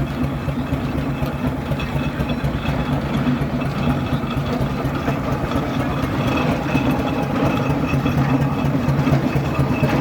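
Burrell steam road roller running on the move: a steady mechanical rumble with a rapid pulsing beat, growing slightly louder toward the end.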